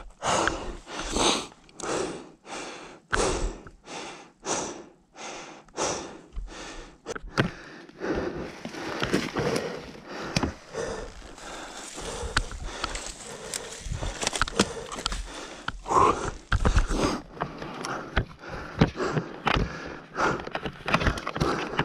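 A person breathing hard and fast, close to the microphone, about one and a half heavy breaths a second at first, then more ragged. Out of breath after wrestling a stalled dirt bike.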